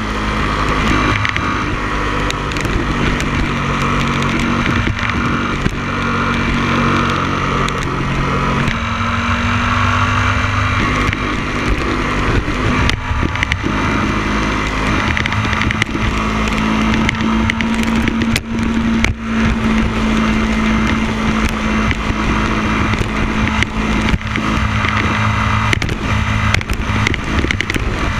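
Motorcycle engine running steadily at road speed under heavy wind rush, its engine note changing about eight or nine seconds in.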